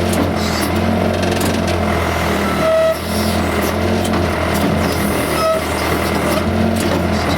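Case 580C backhoe's four-cylinder diesel engine running steadily while the backhoe digs. Brief high-pitched squeals come twice, about three seconds in and again a little past halfway.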